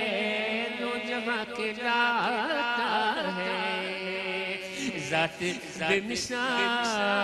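A man singing an Urdu naat (a devotional poem in praise of the Prophet), drawing out long, ornamented notes that slide up and down without clear words.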